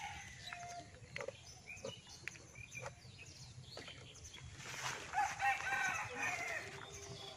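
A rooster crowing once about five seconds in, one long call, the loudest sound here. Before it, scattered light knocks and rustles as woven bamboo fish traps and a cloth sack are handled.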